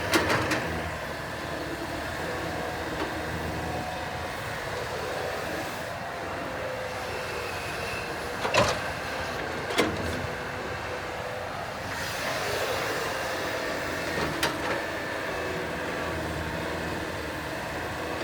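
Sumitomo excavator's diesel engine running steadily, with a few sharp knocks and clanks about 8 and 10 seconds in and again near 14 seconds.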